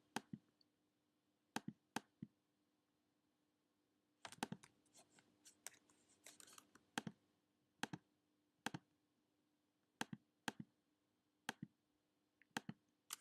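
Faint clicking of a computer mouse and keys while files are selected, single clicks spaced roughly a second apart with short flurries about four and six seconds in, over a faint low steady hum.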